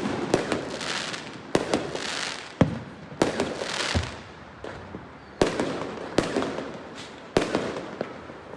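Fireworks and firecrackers going off: sharp bangs at irregular intervals, about one a second, with crackling and hissing between them.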